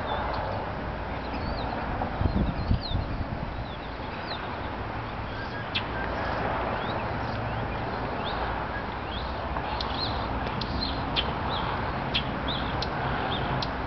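Short high bird chirps, scattered at first and coming thick and fast about two-thirds of the way through, over a steady low outdoor rumble.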